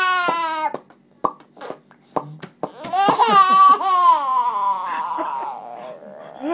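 A baby's long, high-pitched squealing vocalization, then a string of short, sharp mouth pops, then another long squeal that falls in pitch and fades: a baby trying and failing to copy a mouth pop sound.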